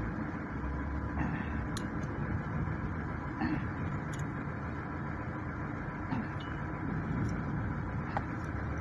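Steady low mechanical rumble with a few light, scattered clicks.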